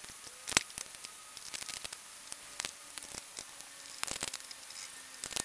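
Hands fitting a part onto a Craftsman push mower's engine at the carburetor: a sharp click about half a second in, then scattered light clicks and taps of plastic and metal parts being pushed into place.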